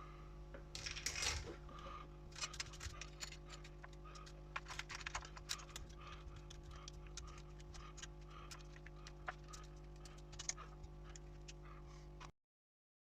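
New saw chain and bar going onto a Husqvarna 137 chainsaw by hand: irregular light clicks and rattles of the chain links over a steady low hum. The sound cuts to silence for about a second near the end.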